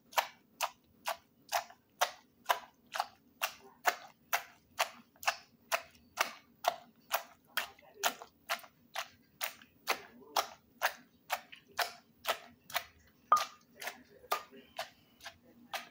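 Wooden pestle pounding in a clay mortar, a steady rhythm of dull knocks about two a second, bruising long beans, chillies and peanuts for a pounded string bean salad.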